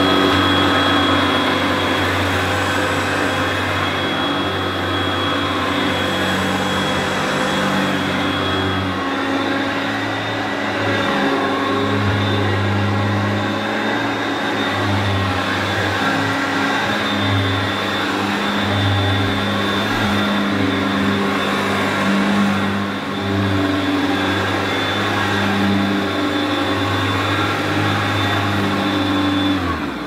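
Hoover upright vacuum cleaner running steadily on carpet, a loud motor whine and rush of air with a low hum that swells and dips as it is worked over the floor.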